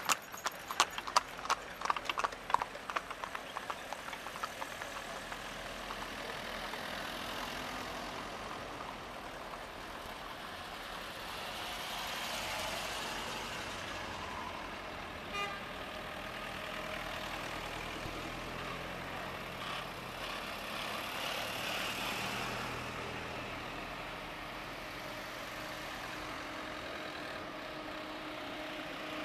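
Hooves of a two-horse carriage clip-clopping on an asphalt road, fading away over the first few seconds. Then a line of cars drives slowly past, a steady sound of engines and tyres that swells and ebbs as each passes.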